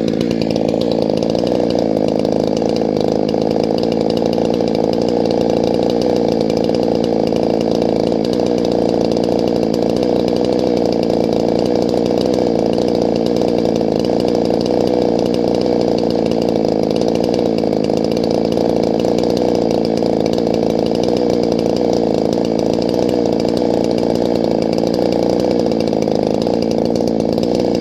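Large gas chainsaw with a 28-inch bar running steadily at full throttle through a long cut in a firewood log, its pitch holding even under load.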